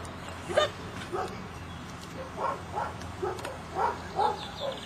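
A dog barking in short, repeated yaps, about two a second, the loudest one about half a second in.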